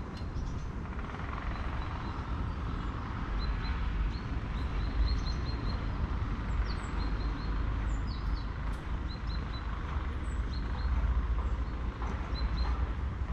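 Outdoor ambience: a steady low rumble with small birds chirping, many short high chirps scattered throughout.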